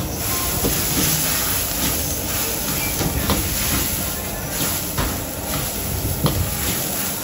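Food sizzling in a large wok over the steady rush of a gas wok burner, with a few sharp clanks of the metal spatula against the wok.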